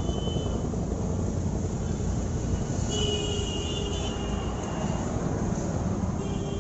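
Motorcycle engine running with a fast, dense rattling beat, and a faint whine comes and goes over it. The noise is the engine sound that the mechanic puts down to the timing chain, which is to be replaced with a full timing kit.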